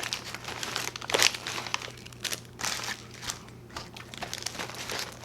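Paper food wrapper crinkling and rustling as it is handled, with irregular sharp crackles, the sharpest about a second in.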